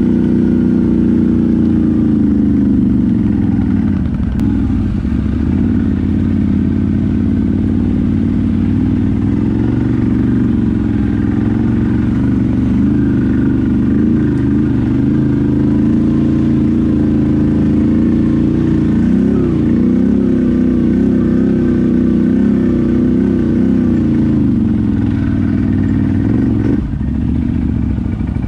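ATV engine running as the quad is ridden. Its pitch drops about three seconds in, then rises and falls with the throttle, and the note falls away abruptly near the end.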